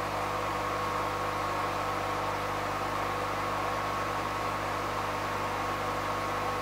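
Steady machine hum with a constant high whine, even and unbroken throughout.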